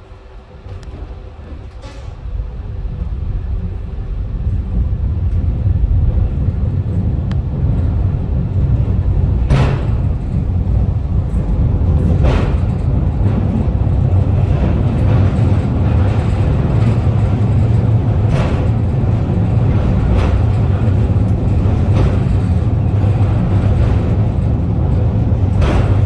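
Funicular car running downhill on its rails through a tunnel: a low rumble that swells over the first few seconds as the car gathers speed, then holds steady, with a few sharp clacks spaced several seconds apart.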